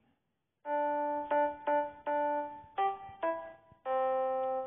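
A short intro jingle played on a keyboard with a piano-like tone: a simple melody of seven notes, the last one held and then fading away.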